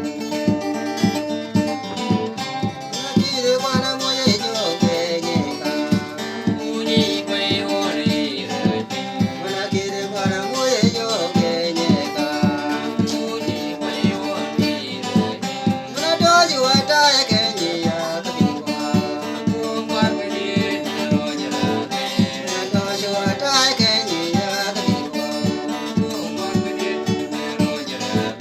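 A man singing a song over a strummed acoustic guitar keeping a steady rhythm; the guitar plays alone at first and the voice comes in about three seconds in.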